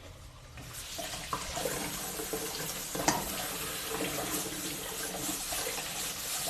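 Kitchen tap running into a sink, starting about a second in and holding steady, with a couple of light clicks, the sharpest about three seconds in.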